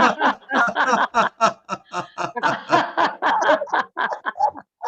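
Human laughter in quick repeated ha-ha bursts, the deliberate laughing of a laughter exercise. It breaks off briefly near the end.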